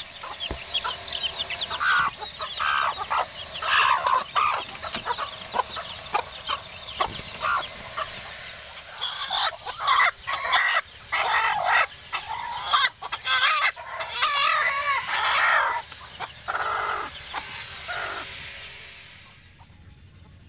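Philippine native chickens in a coop: chicks peeping in quick, short falling notes with a hen clucking, then loud, drawn-out, wavering squawks from about halfway through while a hen is held by hand.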